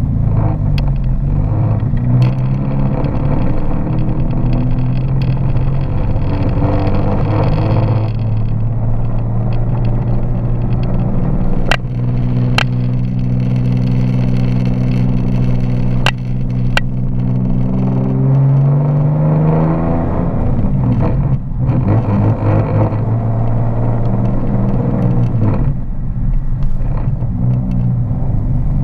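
Nissan 370Z's 3.7-litre V6 running on the move, its note rising and falling with the revs and holding steady for a stretch in the middle. Four sharp clicks stand out in the middle of the stretch.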